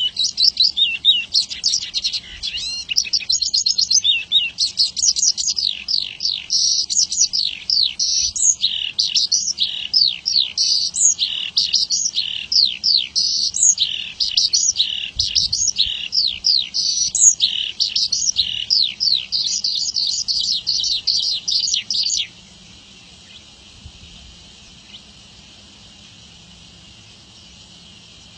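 Javan bush lark (branjangan) singing a fast, unbroken stream of high, varied, down-slurred notes. The song stops abruptly about 22 seconds in, leaving only faint hiss.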